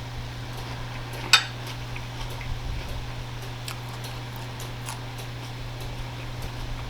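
Close-miked chewing and mouth sounds of someone eating, with small scattered clicks and one sharp, loud crack about a second in.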